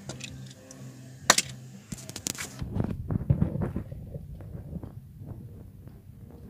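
Handling noises: a few sharp clicks and knocks, then about a second and a half of low rubbing as a die-cast toy car is pushed across a desk and picked up.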